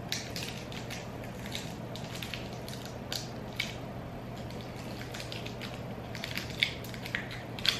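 Chocolate bar wrapper crinkling and crackling in the hands as the bar is unwrapped, in irregular sharp crackles, a few of them louder near the end.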